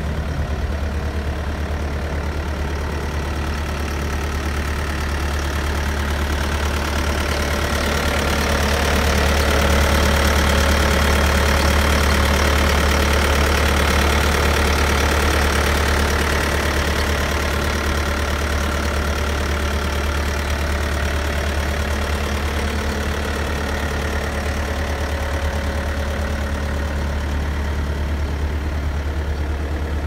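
Bobcat S220 skid steer's 75 hp Kubota turbo diesel idling steadily, growing somewhat louder for several seconds in the middle.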